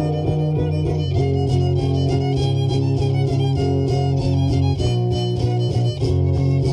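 Violin and guitar music playing a carnival son.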